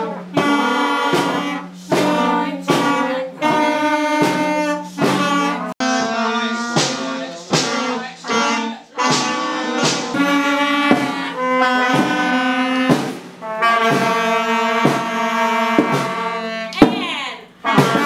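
School wind band playing together: clarinets, French horn, trumpets and saxophones in short, sharply started chords with brief gaps between phrases. A single sharp hit stands out near the end.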